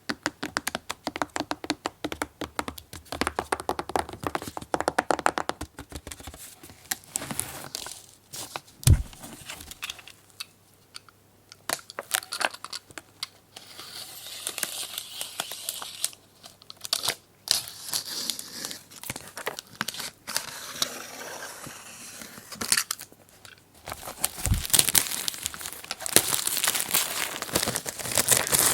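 Toy packaging being unwrapped by hand: plastic wrap crinkling and tearing in a rapid run of crackles. There are two dull knocks, one about a third of the way in and one near the end.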